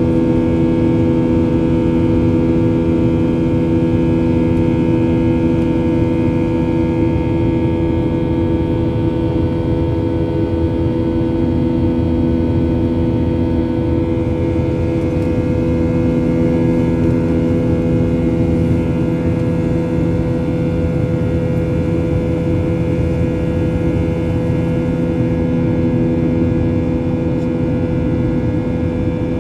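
Cabin drone of a Boeing 737-800 heard from a seat over the wing, its CFM56-7B turbofans running steadily during the climb after takeoff. A constant hum of several steady tones over a low rushing airflow noise.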